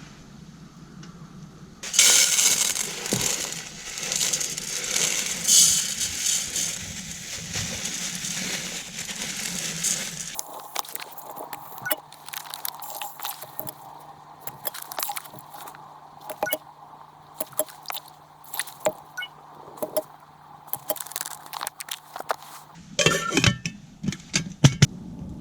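Wood campfire crackling and popping, with sharp clinks and knocks of metal camp cookware. A dense crackle in the first part gives way to sparser pops, then a cluster of clinks near the end.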